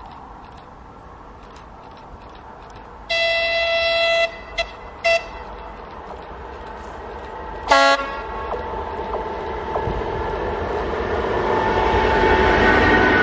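ČD class 460 electric multiple unit sounding its horn as it approaches: one long blast about three seconds in, two short toots just after, and a brief lower-pitched blast near eight seconds. Its running noise then grows steadily louder as the train draws near.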